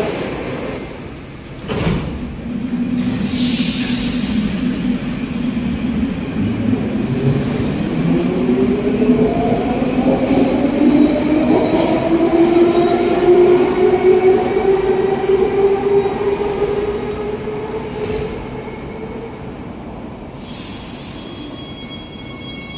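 Metrowagonmash 81-series metro train pulling out of the station, with a brief knock near the start. Its traction motors whine in a steadily rising pitch as it gathers speed, then the sound fades as it leaves.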